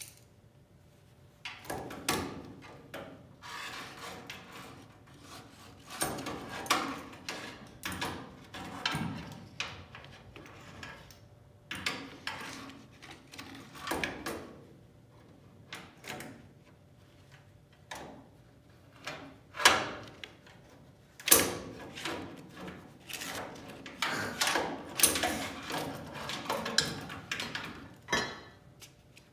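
Hands working metal parts and a paper template against a car's frame rail: irregular scraping and rustling with scattered clanks, two sharp knocks the loudest, about two-thirds of the way through.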